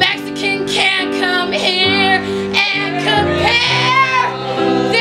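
A woman singing a wavering, high melody with vibrato over live accompaniment of sustained chords that change about every second.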